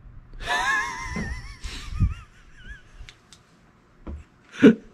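A long, high-pitched fart with a wobbling pitch, starting about half a second in and tailing off over about two seconds. A short loud sound follows near the end.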